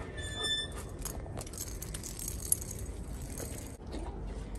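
Light metallic jingling and rustling amid dogs moving about, with a brief high thin tone near the start.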